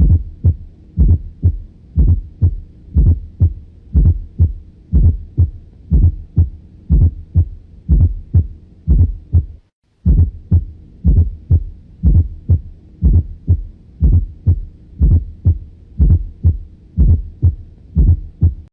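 Heart heard through a stethoscope bell: low thuds repeating in a steady rhythm, with a fourth heart sound (S4) just before each first heart sound, giving an atrial gallop typical of a stiff ventricle. The beats break off briefly just before halfway and then resume.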